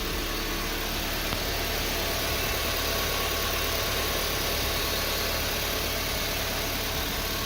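2004 Honda Civic EM2's 1.7-litre four-cylinder engine idling steadily, just after its first start following a head-gasket replacement and still warming up.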